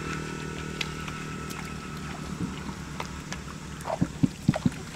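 A steady motor hum in the background, with a few wet slaps and splashes near the end as hands dig and grope in shallow, waterlogged paddy mud.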